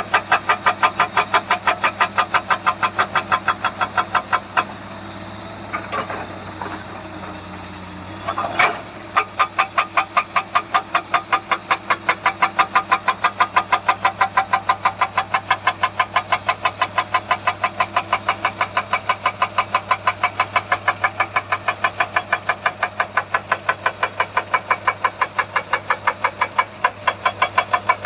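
Hydraulic rock breaker on a Komatsu excavator hammering rock in a rapid, even rhythm of about five blows a second over the steady note of the diesel engine. The hammering stops for about four seconds, then a sharp bang and it starts again.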